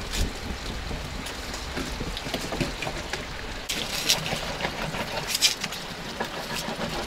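Knife cutting and scraping into a whole trout on a wooden cutting board: several short scraping strokes, the clearest a little past halfway and again about three-quarters through, over a steady low background.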